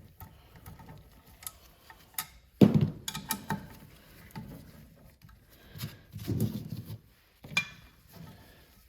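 Irregular metal clicks and knocks of hand tools working the 5/16 twelve-point bolts on a 7.3 Powerstroke turbocharger's housing, with one louder clank about two and a half seconds in.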